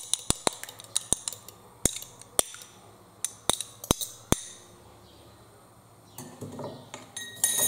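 A fork clinking against a small glass bowl while an egg is beaten: quick, uneven clinks that stop a little over halfway through. A soft handling noise follows near the end.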